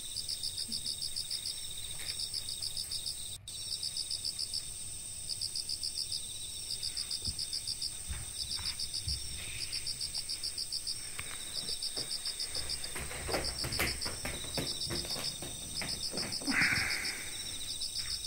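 Crickets chirping, high pulsed trills repeating in trains about a second long over a steady higher trill. A few soft knocks come in the later part.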